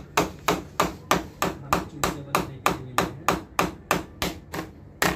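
Hammer tapping small nails into the L-beading along the top of a WPC louvre wall panel, with quick, even strikes at about four a second.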